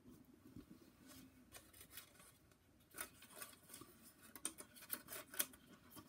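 Faint paper rustling with small clicks and taps as a picture book is lowered and its pages handled, busier in the second half.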